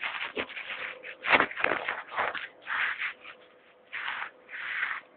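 Rubbing and scraping of fingers or clothing on a phone's microphone as it is handled. It comes as irregular scratchy bursts, loudest a little over a second in with a dull thump, then in shorter rubs.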